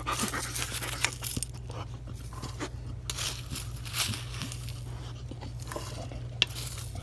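A Labrador retriever chewing and tearing at a tough, fibrous plant-pot wick: irregular crunching and ripping with short clicks, louder near the start, around three seconds in and near the end.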